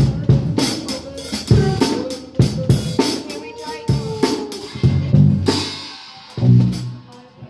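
A toddler bashing a drum kit with drumsticks: uneven strikes on the drums and cymbals, about two a second, some with a ringing cymbal crash.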